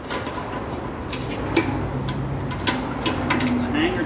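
Irregular sharp metallic clicks and knocks from hand tools and the old exhaust pipe being worked loose under a Toyota Highlander.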